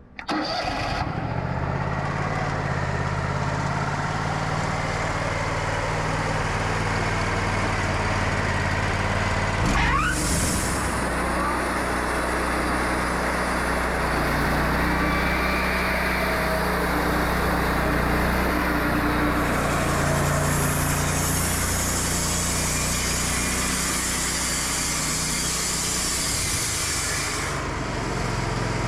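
Wood-Mizer LT40 Wide band sawmill running: its engine comes in suddenly and runs steadily. About ten seconds in, a brief rising whine leads into a steady hiss as the band blade takes a trim cut through the hard pecan log, and the hiss fades out near the end.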